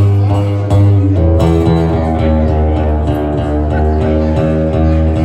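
Acoustic guitar and plucked upright double bass playing together in a blues-folk tune, with the bass notes changing every second or so under the guitar.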